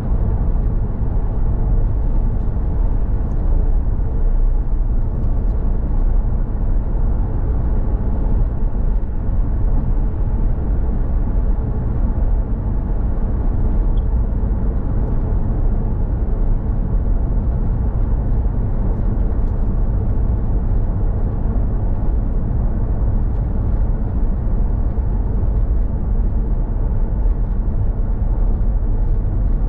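Car driving at road speed: a steady low rumble of tyre, road and engine noise.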